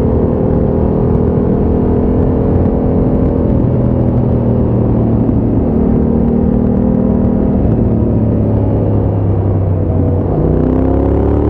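2020 Yamaha Ténéré 700's parallel-twin engine running through a Scorpion exhaust with the baffle removed, as the bike cruises, its pitch stepping up and down a few times with the throttle. Near the end the note dips briefly, then climbs as the bike accelerates.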